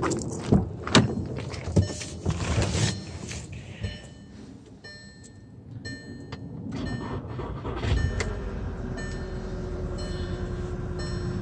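A few knocks and clunks, then the 2012 VW Tiguan TSI's engine starts about 8 seconds in and settles into a steady idle. Short repeated high electronic tones, like dashboard warning chimes, sound before the start.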